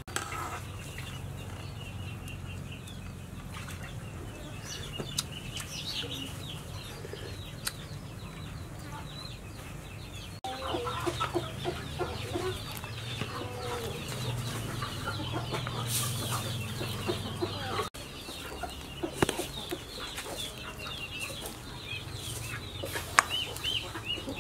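Chickens clucking over a steady low hum, with a few sharp clicks; the background changes abruptly twice, about ten and eighteen seconds in.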